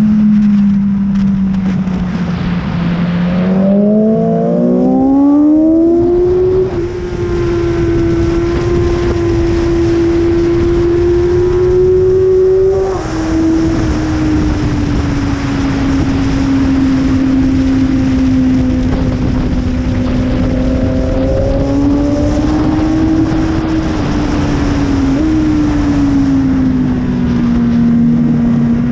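BMW S1000RR inline-four sportbike engine running hard on track under a constant rush of wind. Its pitch sags, then climbs sharply about four seconds in. It holds high, drops abruptly near the middle, and then rises and falls more gently for the rest of the stretch.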